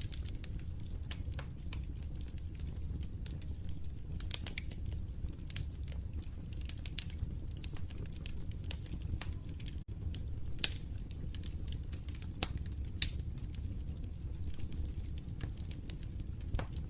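Log fire crackling in a fireplace: irregular sharp snaps and pops over a steady low rumble of burning, with a momentary dropout about ten seconds in.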